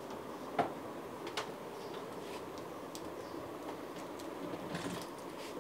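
Steady room hum with a few light clicks and taps from laptop parts being handled.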